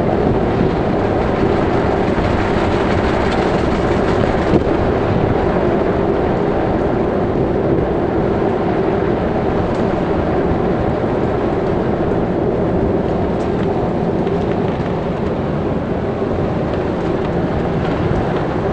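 Steady engine and road noise heard inside a moving car's cabin, with a low steady hum. One light knock about four and a half seconds in.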